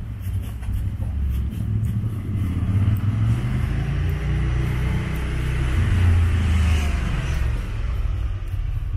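A motor vehicle passing along the street: a low engine rumble with tyre noise that swells about six to seven seconds in, then eases.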